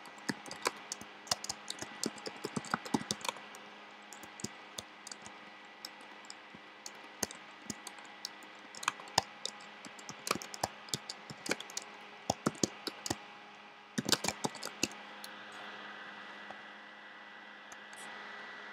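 Typing on a computer keyboard: irregular keystrokes with short pauses and a quick run of keys about fourteen seconds in, over a faint steady hum.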